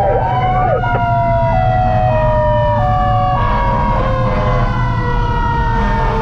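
Fire truck sirens: a siren winding down in a long, slowly falling wail, joined from about a second in for a couple of seconds by a two-tone siren switching between a high and a low note. Under them runs the steady low rumble of the truck's engine.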